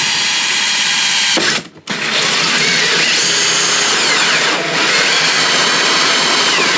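A DeWalt cordless drill driving a hole saw through an ATV's plastic body panel: a loud grinding whine. It cuts out briefly about one and a half seconds in, then runs on, its whine shifting in pitch midway.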